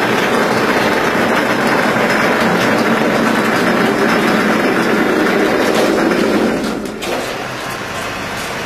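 Automatic cement-plastering machine running, its carriage climbing the mast with a steady, loud mechanical noise. The noise drops suddenly about seven seconds in and carries on quieter.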